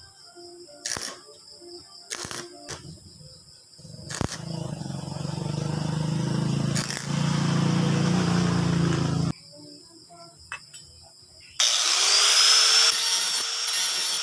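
Stick (arc) welding: a few sharp crackles as the electrode strikes and tacks a small metal disc, then about five seconds of continuous arc crackle and buzz that stops abruptly. A couple of seconds later an angle grinder starts with a rising whine and grinds the weld.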